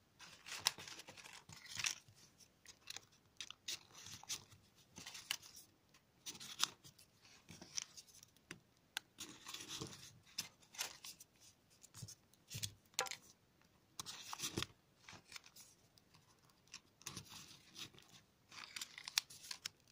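Folded paper triangle modules of a 3D origami model being handled and slid into the pockets of the round below: short, irregular paper rustles and crinkles.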